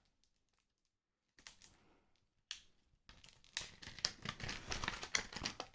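Scissors cutting through product packaging: near silence at first, a couple of single clicks, then from about halfway a quick run of snips and crackling clicks.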